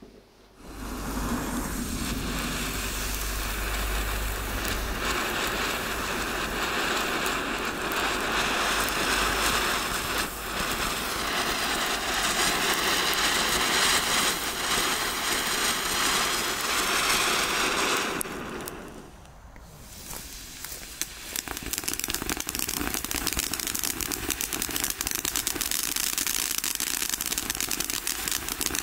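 A 16 mm Chinese ground fountain hissing steadily for most of the first eighteen seconds. After a brief lull, several fountains burn together and their chrysanthemum stars give a dense, soft crackling.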